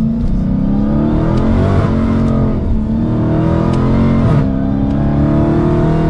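Dodge Challenger SRT Hellcat Redeye's supercharged 6.2-litre V8 under full-throttle acceleration, heard from inside the cabin: the engine note climbs steadily, drops at an upshift about two seconds in and again at a second upshift past four seconds, then climbs once more.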